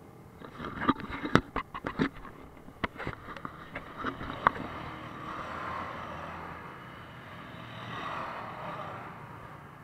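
ATV and dirt-bike engines passing at the start of an off-road ride: first a quick series of sharp cracks, then engine noise that swells and fades twice as the machines go by.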